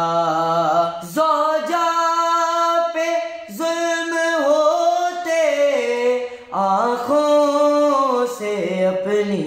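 Unaccompanied young male voices singing an Urdu noha (lament), one reciter taking over from the other, drawing out long wavering held notes with no clear words. A low steady hum sounds beneath the melody at the start and again in the last few seconds.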